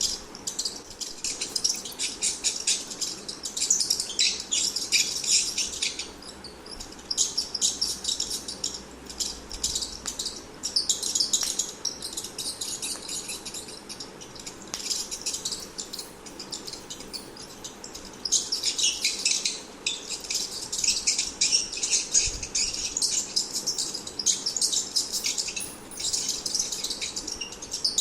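Rat squeaking: rapid, high-pitched chirping squeaks that come in bouts of a few seconds, with short pauses between them.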